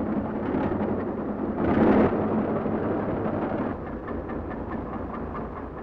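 An excavator digging: a low rumble with rock and gravel clattering as the bucket bites, loudest about two seconds in.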